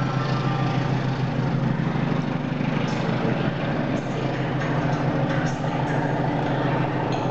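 English Electric-engined CP 1400-class diesel locomotive working under power as it pulls a train away from the station, a steady low engine drone that eases slightly as it goes, with a few faint clicks.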